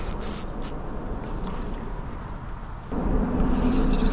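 Spinning reel's light drag giving line in three short buzzing bursts as a small carp pulls, then a steady whir from about three seconds in as the reel is cranked.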